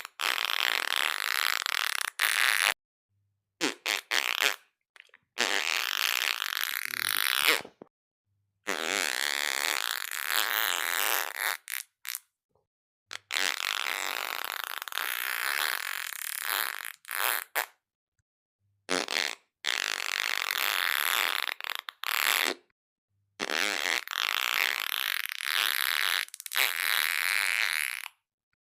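A run of about nine fart sounds played one after another. Each lasts from under a second to about five seconds, and they are separated by brief dead silences where the clips are joined.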